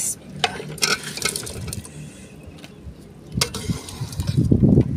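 Chopped apple gourd pieces tipped into a pot of simmering chana dal with a splash, then a metal ladle clinking and scraping against the aluminium pot as the vegetables are stirred in, the stirring loudest near the end.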